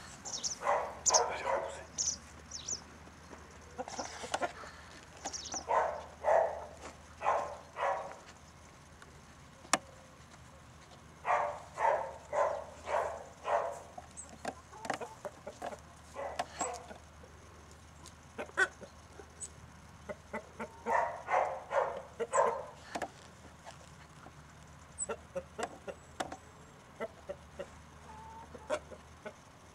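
Chickens clucking in runs of several quick clucks, a new run every few seconds.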